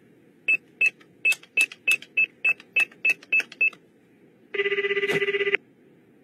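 Push-button telephone keys beeping as a number is dialed, eleven quick beeps. This is followed by about a second of buzzing ringback tone in the handset as the call starts to ring through.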